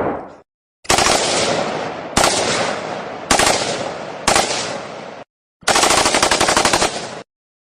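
Machine-gun fire in rapid bursts: four bursts that run into one another, each opening with a loud report, then after a short gap one steadier burst about a second and a half long. A louder preceding sound dies away in the first half second.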